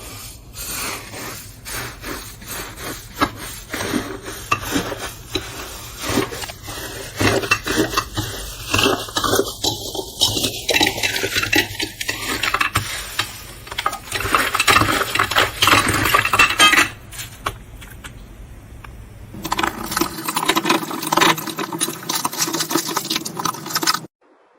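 Slime being squeezed and poked, making dense crackling and clicking, with a brief lull about two-thirds of the way in and a change in the sound near the end.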